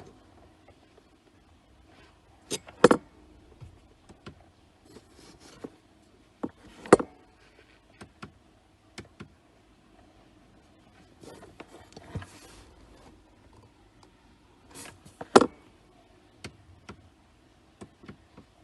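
Scattered sharp clicks and small knocks as dashcam hardwire-kit cables and parts are handled and connected at a car's fuse box. The loudest come about three, seven and fifteen seconds in.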